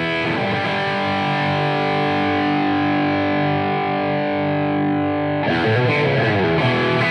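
Outro music on distorted electric guitar: one chord held and ringing for about five seconds, then fresh strummed chords coming in about five and a half seconds in.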